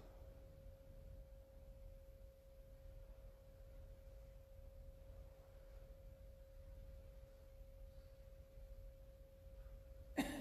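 Near silence: room tone carrying a faint, steady single pure tone with no change in pitch, over a low rumble. A sudden knock comes just before the end.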